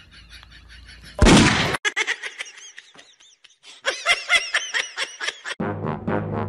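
A loud single gunshot sound effect about a second in, then high-pitched laughter in two bursts. Near the end a steady music track begins.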